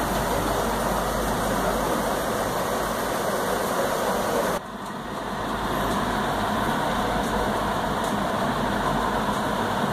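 Steady background noise with no words, spread evenly from low to high pitch, dropping sharply about four and a half seconds in and then building back to the same level.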